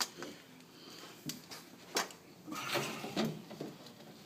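A few sharp clicks and knocks from PEX pipe and fittings being handled during the plumbing work, with faint rustling in between.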